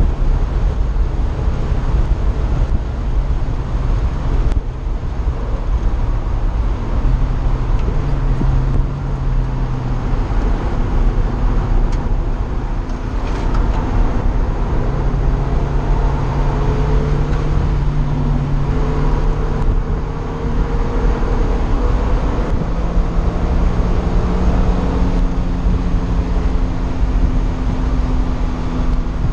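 Onboard sound of an open-top track car at speed: wind buffeting the microphone over the engine. The engine note holds a pitch, then shifts up or down several times as the driver changes gear and lifts on and off the throttle.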